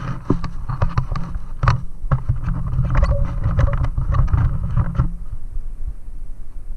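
Wind rushing over the action camera's microphone while riding a bicycle over a rough, cracked paved road, with many quick knocks and rattles from the bumps. About five seconds in the rattling stops and only a low wind rumble remains.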